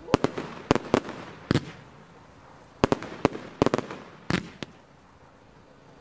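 A professional fireworks display going off, with an irregular run of about fifteen sharp bangs in clusters over the first four and a half seconds, some followed by a short echoing tail.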